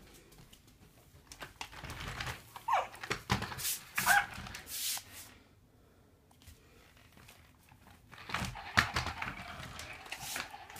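FurReal Friends GoGo walking puppy toy running: the clicking and knocking of its walking mechanism, mixed with its short electronic puppy sounds, in two spells a few seconds apart.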